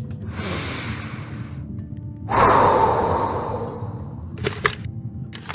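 Quiet background music with a steady low drone. About two seconds in, a long breathy rush of noise swells and fades over the next two seconds, and a few short clicks come near the end.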